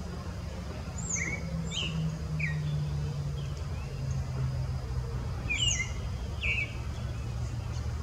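Creamy-bellied thrush singing two short phrases of quick, sharp, high notes about four seconds apart, over a low steady rumble.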